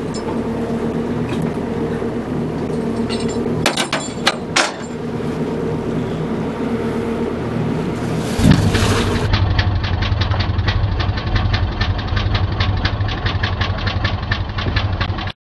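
Small boat's engine idling steadily, with a few sharp knocks about four seconds in. About halfway through the sound changes to a louder, deeper engine running with a rapid, even pulse.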